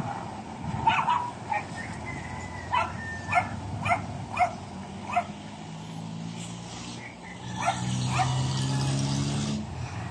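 A dog barking repeatedly, about nine short barks in uneven bursts, over the dump truck's engine running, which grows louder near the end.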